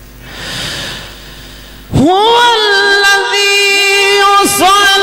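Melodic Quran recitation (tilawat) by a male qari. After a soft rush of noise at the start, about two seconds in his voice comes in suddenly and holds one long, loud note, ornamented with small turns and bends in pitch.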